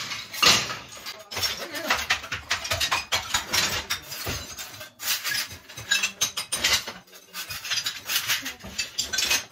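Old ceramic floor tiles being broken up with hammers: a quick, irregular run of sharp hammer taps, with loose tile shards clinking and clattering against each other.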